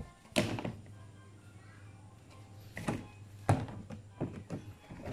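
Several sharp knocks and thunks as the plastic and metal parts of a semi-automatic washing machine are handled during reassembly. A steady low hum runs under the first three seconds.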